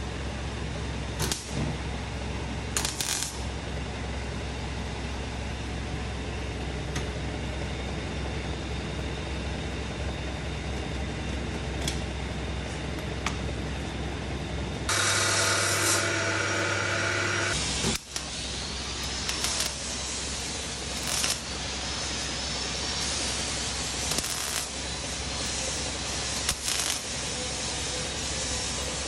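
Arc welding on a steel office-chair wheel base: a steady low hum with scattered metal clinks, then the arc crackles and hisses in the second half. A louder whirring machine sound runs for about three seconds midway.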